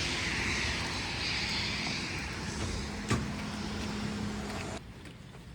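Road vehicle noise: a rushing hiss that swells and fades over a low steady hum, with a single sharp knock about three seconds in. The sound drops away abruptly near the end.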